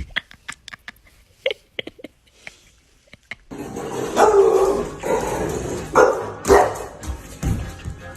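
A dog barking several times, starting about three and a half seconds in. Before that there are only light scattered clicks.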